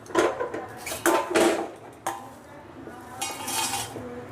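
Spatula scraping and knocking against a pan, scooping dry-roasted, crisp curry leaves and black peppercorns out onto a plate. The scrapes are loudest in the first second and a half, with another rasping scrape near the end.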